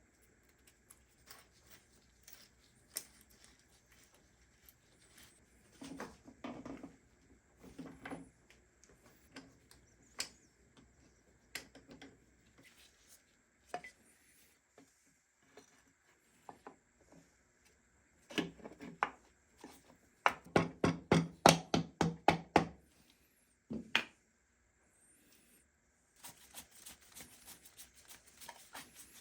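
Hand tools and metal parts clicking and knocking as work goes on at a motorcycle engine's sprocket side. There are scattered single knocks, a quick run of about a dozen heavier knocks roughly two-thirds of the way in, and a faster, lighter rattle near the end.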